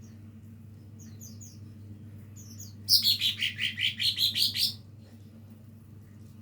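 Green leafbird (cucak ijo) singing, a young bird practising its song: a few faint high chips, then about three seconds in a loud rapid trill of about a dozen notes, lasting under two seconds, that dips in pitch and climbs back up. A steady low hum runs underneath.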